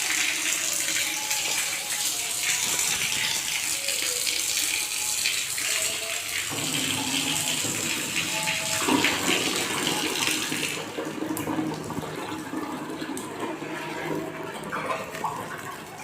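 Water running hard from a newly plumbed bathroom fitting, a steady rushing spray that starts abruptly and drops to a weaker flow about eleven seconds in.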